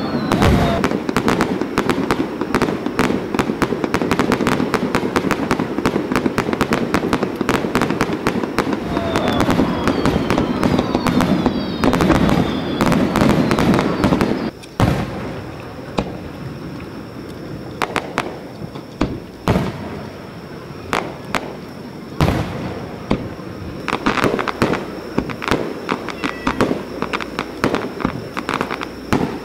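Fireworks display: a dense barrage of aerial shell bursts and crackling, with a few falling whistles, that stops abruptly about halfway through. After that come scattered single booms every second or two.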